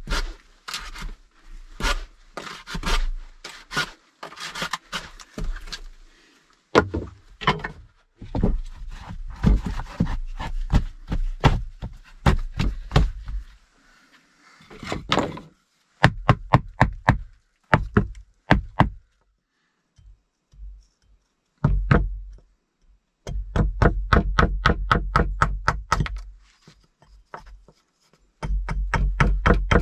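Wooden knocking and tapping as a hatchet is driven down through a small block of wood on a plank bench, splitting off thin sticks. In the second half it comes as fast runs of taps, several a second, with a short pause between runs.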